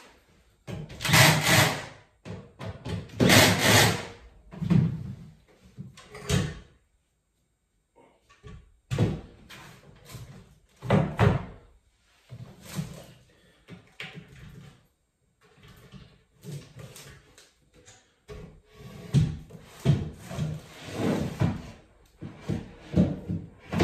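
A cordless drill drives screws into a particleboard bed-frame panel in two bursts of about a second each in the first few seconds. After that come irregular knocks, clatter and scrapes as the panels and fittings are handled by hand.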